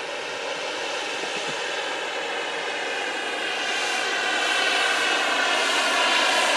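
Graupner Agusta A119 model helicopter with a JetCat gas turbine, in flight: a steady turbine whine and rotor hum with many even overtones, growing steadily louder as it comes closer.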